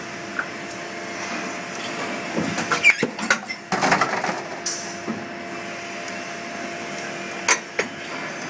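Injection moulding machine running with a steady hum, broken by a cluster of knocks and clanks around the middle and another sharp knock near the end.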